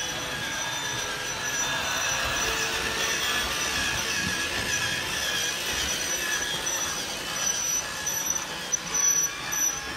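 Holiday Express toy train running along its track: a steady whir of the small motor and wheels rattling on the rails, with a few louder clicks near the end.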